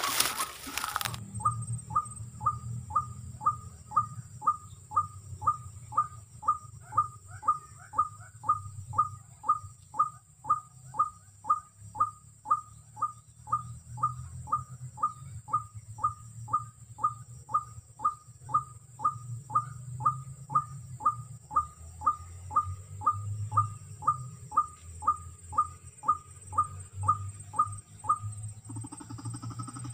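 White-breasted waterhen (ruak-ruak) call: one short note repeated very evenly, about twice a second, over and over, stopping shortly before the end.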